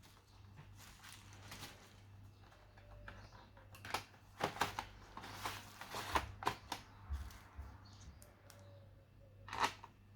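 Irregular plastic clicks and scrapes of hands working on an HP 255 G5 laptop, over a steady low hum. The clicks come thickest in the middle, with one loud click near the end.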